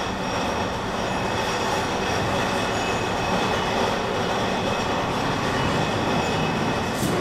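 Steady mechanical noise with a few thin, high, steady whining tones running through it and no clear rhythm.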